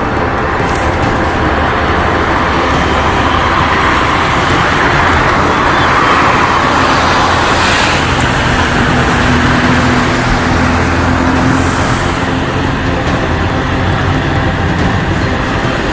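Steady road traffic noise, swelling louder for a few seconds about three to eight seconds in, as a vehicle passes.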